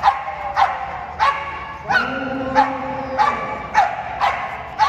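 Pit bull barking over and over in a steady rhythm, a little under two barks a second.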